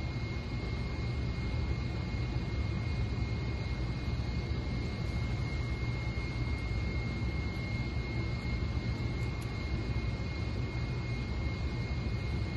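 Steady low mechanical drone with a constant thin high whine over it: machinery room tone, such as ventilation or pump equipment running.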